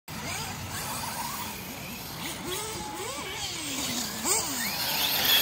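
Radio-controlled truggies running on the track, their motors revving up and down in a series of rising and falling pitches that grow a little louder near the end.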